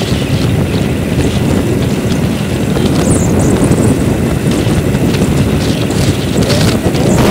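Steady wind buffeting the microphone on the roof of a moving vehicle, a loud low rumble with road and traffic noise underneath.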